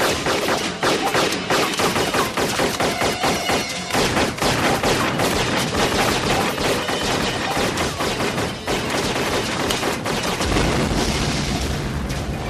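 Sustained bursts of rapid automatic rifle fire for about ten seconds. Near the end a large explosion sets in with a deep, lasting rumble.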